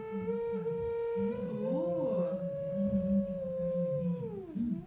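Theremin-style electronic tone from a hand-controlled laptop instrument, played through the laptop's speaker. It holds one pitch that creeps slightly upward, then swoops down near the end, while a lower, wavering tone plays beneath it.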